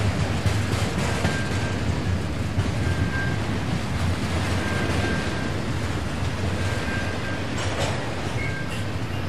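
A train rolling steadily past, its cars and wheels on the rails making a heavy continuous rumble. A short high tone comes from the wheels about every two seconds.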